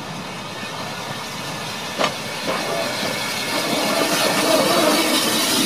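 Steam locomotive Twizell, an 1891 Robert Stephenson 0-6-0 tank engine, approaching with its train, its steam hissing and growing louder toward the end as it comes close. A couple of sharp clicks sound about two seconds in.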